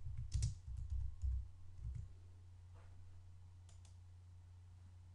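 A quick run of keystrokes, about seven clicks in the first two seconds, as a short text is typed. After that there is only a faint, steady low hum.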